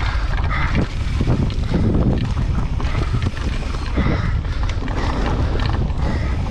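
Wind rushing over the camera microphone and a mountain bike's tyres rolling fast over a dry, rocky dirt trail, with a few sharp knocks and rattles from the bike over bumps.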